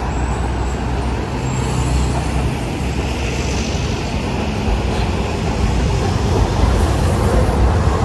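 Road traffic on a city street, with a Hiroshima Electric Railway streetcar approaching on its rails. Its rumble grows louder over the last few seconds as it draws alongside.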